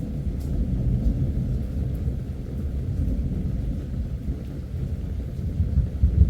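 Rolling thunder: a long, low rumble that swells louder near the end.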